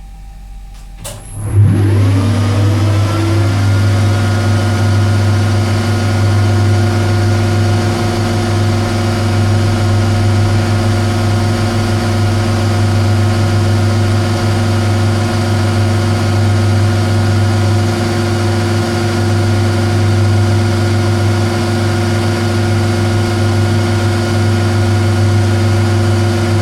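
Metal lathe started up about a second and a half in, after a click: its motor and drive whine up in pitch over a second or so, then run steadily with a strong hum at a higher spindle speed.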